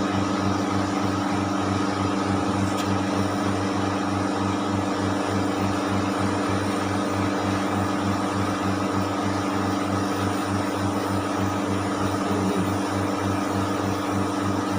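A 30 HP Dorin refrigeration compressor unit running: a steady, even machine hum with a fast regular pulse under a constant hiss.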